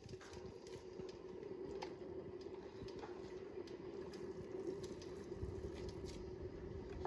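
Soft wet squishes and light splashes as handfuls of shredded pickled cabbage are dropped into a pot of water, over a steady hum.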